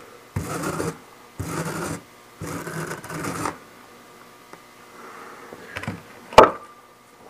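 Wire brush scrubbed across a rough rock specimen in three strokes, clearing loose broken fragments from a fresh crack, followed by a single sharp knock near the end.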